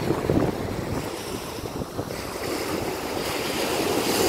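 Beach wind buffeting the phone's microphone together with surf washing on the shore, a rough rushing noise that swells near the start and again toward the end.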